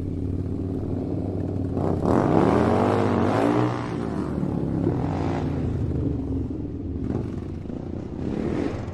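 Motorcycle engine idling steadily, then revved up sharply about two seconds in and let fall back, followed by a few shorter throttle blips.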